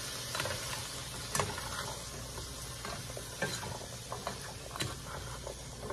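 A spatula stirring chopped onions, celery and carrots sautéing in a pan, with scattered clicks and scrapes of the spatula against the pan over a steady sizzle.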